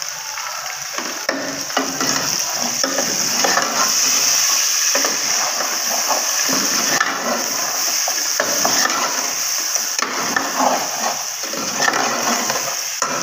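Chicken pieces sizzling in oil and masala in an aluminium pot, with a steady frying hiss. A steel ladle stirs them, clicking and scraping against the pot.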